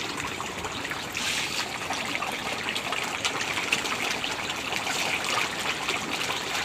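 A dense crowd of common carp churning at a pond's surface: a steady crackle of many small splashes and water slapping, a little louder from about a second in.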